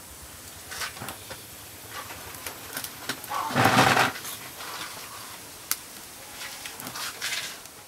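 A person slurping soup from a spoon: one loud slurp of about half a second midway, with a few light clicks and taps of the spoon before and after.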